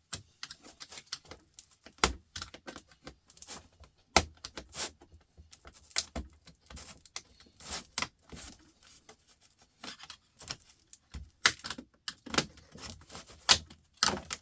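Irregular clicks, clinks and knocks of small laptop parts being handled and pulled apart during a teardown, with sharper knocks about two and four seconds in and a busier run of clatter near the end.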